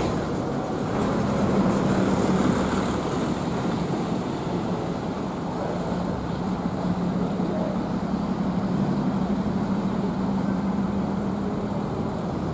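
Diesel bus engines running with a steady low hum, over road traffic noise.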